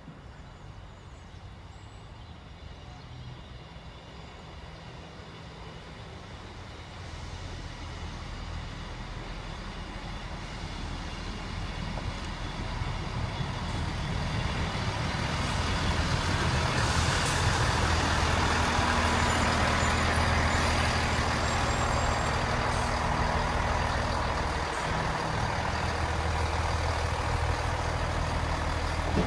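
Class 158 Express Sprinter diesel multiple unit arriving: its underfloor diesel engines and wheels on the rails grow louder over the first half as it approaches, then hold as a steady engine hum with rail noise while it draws slowly along the platform.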